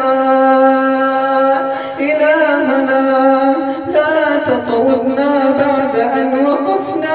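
A male voice chanting the supplication in long, melismatic held notes in the Moroccan style, the pitch bending through ornamented turns, with brief breaths about two and four seconds in.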